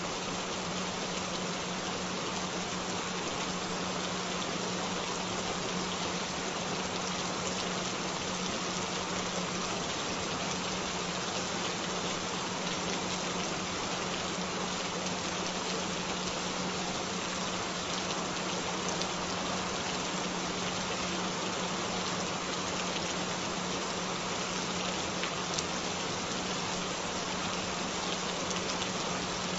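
Steady rain falling, an even hiss of raindrops, with a constant low hum-like tone held underneath it throughout.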